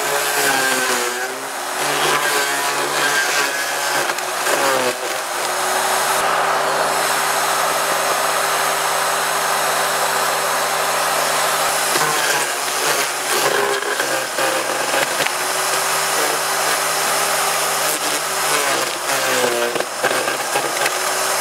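Fieldmann FZD 4010-E electric garden shredder running, its blades chopping branches fed into the hopper. The motor's pitch sags briefly each time a branch is drawn in, near the start, about five seconds in, around twelve to fourteen seconds and again near the end, and runs steady in between.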